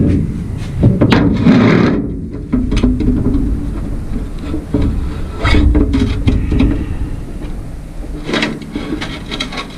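Heavy iron vise parts being handled on a steel diamond-plate truck bed: several metal clunks and knocks with scraping in between as the pieces are moved and fitted together.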